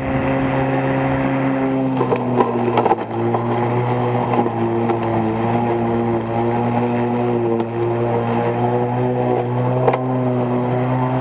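Neuton CE6 36-volt battery electric lawn mower running with its blade spinning, a steady motor hum and whine. About two seconds in, the tone shifts slightly and there is brief crackling as the blade bites into grass and debris.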